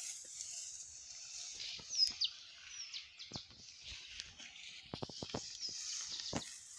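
Birds chirping a few times over a steady high hiss, with several short crisp snaps, a quick cluster of them about five seconds in.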